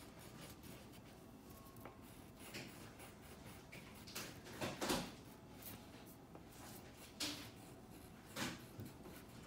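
A wax crayon rubbing back and forth on paper, faint scratchy coloring strokes, with a few soft knocks, the loudest about five seconds in.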